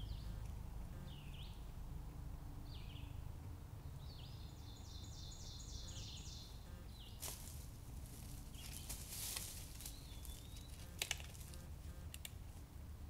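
Songbirds singing in woodland: several short high whistled slurs, then a rapid run of repeated high notes about four seconds in. From about seven seconds, rustling and crunching in dry leaf litter as someone steps through it, then a couple of sharp clicks near eleven seconds.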